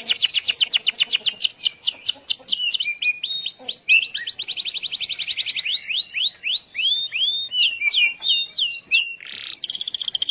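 Domestic canary singing a long, continuous song: fast trills of rapidly repeated notes, broken by series of downward-sweeping whistled notes. There is a short raspy note near the end, then another fast trill.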